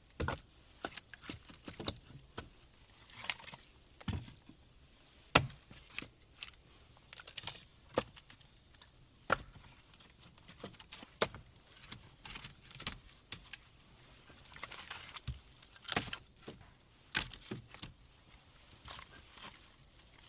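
Wooden sticks and branches knocking and clattering irregularly, with rustling in between.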